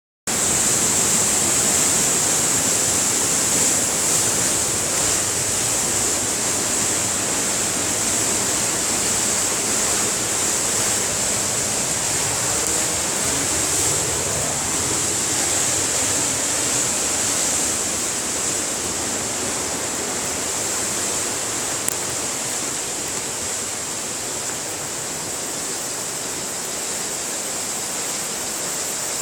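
Steady rushing roar of a waterfall, with a high hiss on top.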